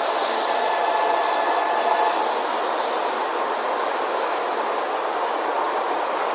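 Tokaido Shinkansen train running, a steady rushing noise with faint high wheel tones.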